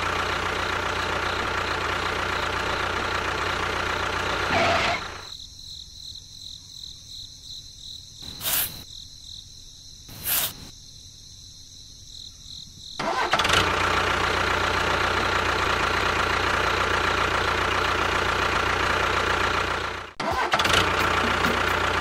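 Steady engine-like running of a miniature tractor. It drops to a much quieter lull from about five to thirteen seconds in, broken by two short sharp clicks, then runs again with a brief break near the end.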